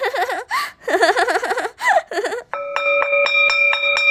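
High-pitched laughter in repeated bursts of ha-ha's. About two and a half seconds in, the laughter gives way to a short music cue: a few held notes over a quick, even beat of about four strokes a second.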